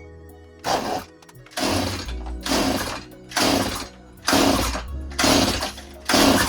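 Background music with a steady beat, a hard hit a little under once a second over a low bass line.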